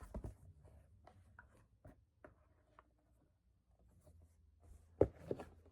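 Small clicks, scratches and rustles of objects being handled at close range, with a cluster of knocks at the start and two louder knocks about five seconds in.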